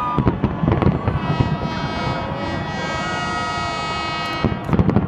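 Fireworks bursting: a rapid cluster of bangs in the first second and another near the end. In between, a steady pitched tone holds for about three seconds over a continuous background rumble.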